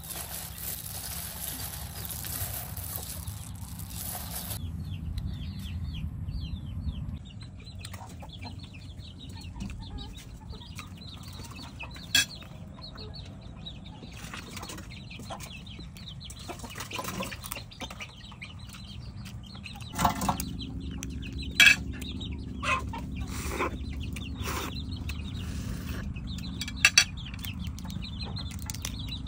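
Chickens clucking and cheeping throughout. During the first few seconds a salad of crisp noodles and shredded vegetables rustles as it is tossed by hand in a bowl. Later a few sharp clicks and clinks of utensils on a plate stand out.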